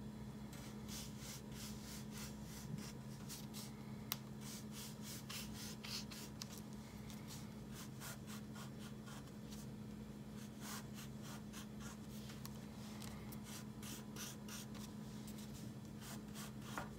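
Faint, scratchy strokes of a drawing tool on paper, coming in quick, irregular runs as zigzag lines are drawn, over a steady low hum.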